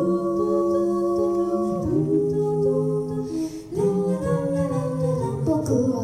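Mixed-voice a cappella group of five singers, amplified through microphones, singing long held chords. The chord shifts about every two seconds, with a brief drop in loudness a little past the middle.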